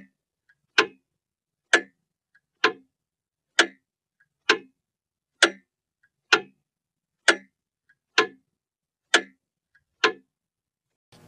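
A clock ticking slowly and evenly, about one sharp tick a second, a dozen ticks in all, with a faint softer click between every other pair; the ticking stops shortly before the end.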